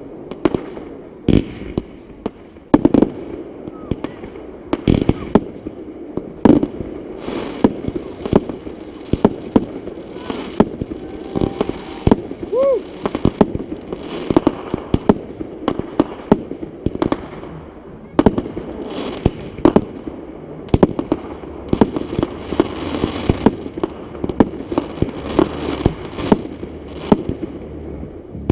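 Aerial fireworks going off: dozens of sharp bangs in quick, irregular succession, some followed by a second or so of crackling hiss.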